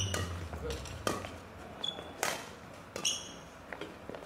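Badminton racket hitting a shuttlecock a few times, sharp strikes about a second apart, with short sneaker squeaks on the wooden court floor.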